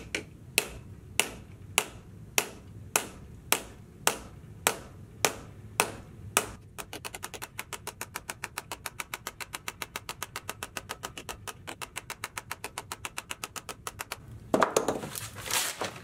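Small ball-peen hammer striking a sheet-steel patch clamped in a wooden jig, dishing a strengthening rib into it. The first six and a half seconds hold sharp blows about every half second or so, then a long run of quicker, lighter taps at about eight a second. Near the end comes a louder rustling clatter.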